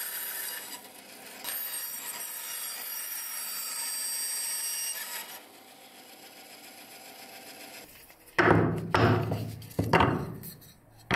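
Bandsaw running as it cuts a wooden piece, for about the first five seconds. Near the end, several loud wooden knocks and scrapes as the cut pieces are handled against the bench.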